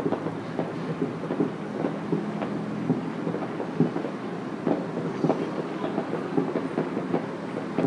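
Many distant fireworks and firecrackers popping and banging irregularly, overlapping into a continuous crackle over a low rumble.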